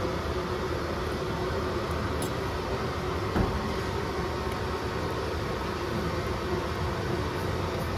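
Steady mechanical hum over a constant hiss, with one light click about three and a half seconds in.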